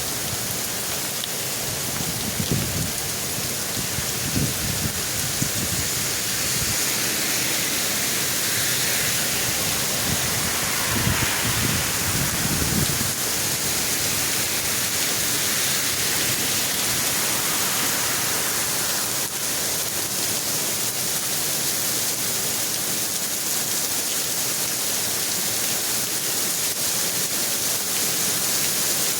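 Heavy rain pouring down steadily in a thunderstorm, with bouts of low rumbling during the first dozen seconds or so.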